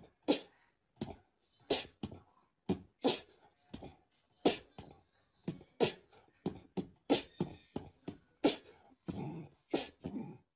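Small dog giving a string of short, breathy huffs at a rubber toy frog, about one every two-thirds of a second, with a few deeper, voiced woofs near the end.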